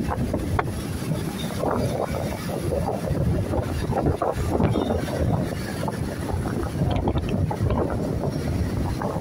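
Wind buffeting the microphone of a moving vehicle, over the steady rumble of road traffic and motorcycles.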